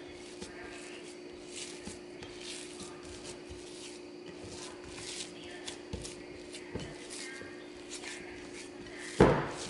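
Hands kneading and squishing soft arepa dough with cheese in a glass bowl: quiet, irregular rubbing and squelching strokes over a steady hum. One louder thump near the end.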